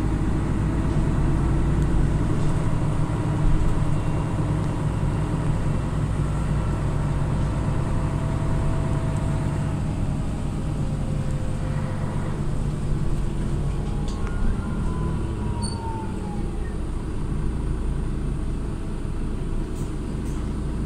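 Mercedes-Benz O530 G Citaro articulated bus driving, heard inside the passenger cabin: its horizontal OM457hLA turbocharged inline-six diesel runs steadily under way, with faint higher whines that glide up and down in pitch.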